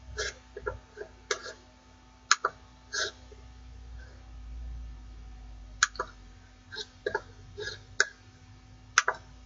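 Scattered computer mouse clicks with a few softer taps and knocks, irregular, about a dozen in all, over a faint steady electrical hum and a low rumble.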